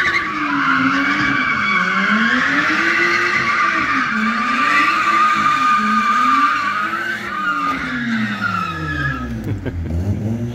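Tyres squealing continuously as a Toyota Soarer and a Mazda Miata drift in tandem, with an engine revving up and down on the throttle. The squeal stops about nine seconds in, leaving a deeper engine note.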